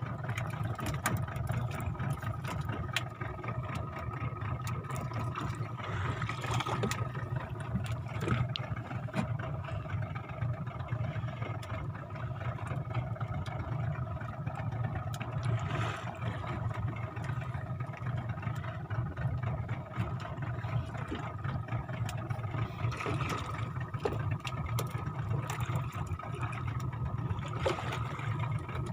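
Fishing boat's engine running steadily under way, an even hum with scattered small clicks and knocks over it.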